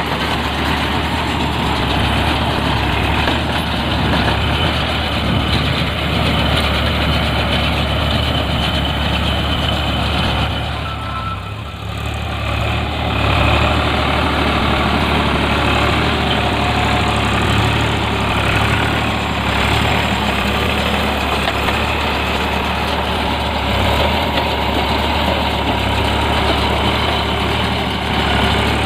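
Eicher 557 tractor's diesel engine running steadily, with a brief drop in level about eleven seconds in.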